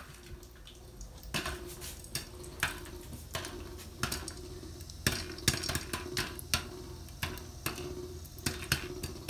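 Popcorn kernels popping in a covered pot on a gas stove: irregular sharp pops, a couple a second, coming more often in the second half.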